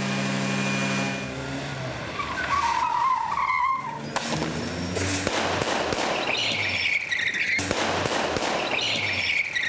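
Car tyres squealing through several long skids as stunt cars are driven hard, with the cars' engines running beneath. The first squeal is lower in pitch than the later ones. A steady hum sounds for about the first second.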